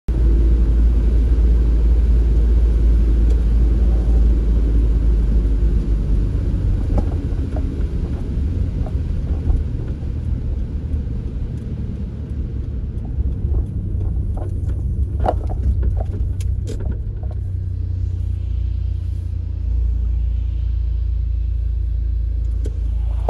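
Car driving on a wet road, heard from inside the cabin: a steady low rumble of engine and tyres. Scattered light ticks come through in the middle stretch.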